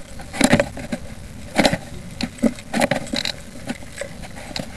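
Irregular knocks, clicks and scraping of the radio-controlled model being handled right against its onboard camera, with no motor running.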